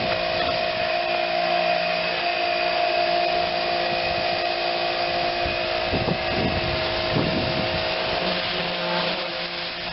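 Small pressure washer running steadily, its pump motor whining under the hiss of the water spray.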